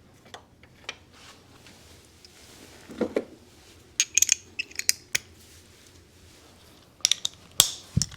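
Metal tools and small metal parts clinking and tapping during work on a car's air-conditioning compressor, in irregular clusters of sharp clicks.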